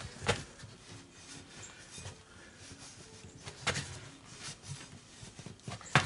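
Cloth rag rubbing and scuffing on a steel ATV wheel rim and its rubber tire bead, wiping rust and dirt off the bead seat, with a few sharp knocks as the tire is handled.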